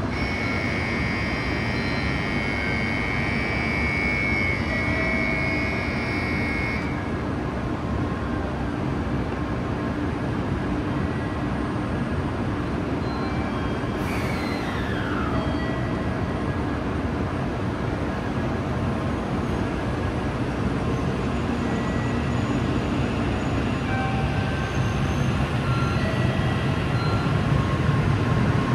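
Tokaido Shinkansen train noise: a steady rumble and hiss, with high steady tones that cut off about seven seconds in and a short falling whine about halfway through.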